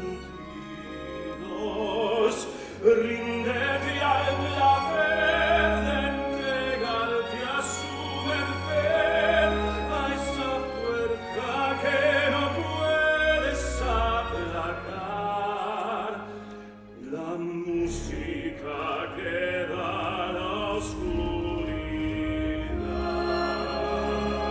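Musical-theatre number: a male voice singing a slow, swelling ballad over a theatre orchestra with strings.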